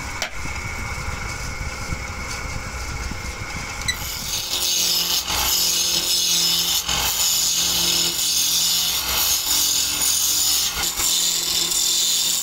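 A belt-driven wood lathe spins a wooden blank while a hand-held chisel cuts it, making a steady hissing scrape as the tool shaves the wood. About four seconds in, the cutting gets louder and brighter, with a faint motor hum underneath.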